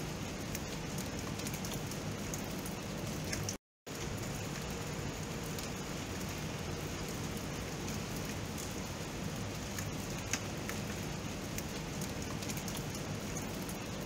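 Steady rain falling, a continuous hiss with scattered individual drops ticking. The sound cuts out completely for a moment about three and a half seconds in, then resumes.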